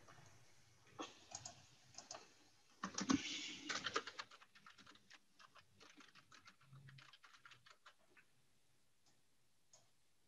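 Typing on a computer keyboard: runs of quick keystrokes, busiest and loudest about three seconds in, thinning to a few scattered clicks near the end.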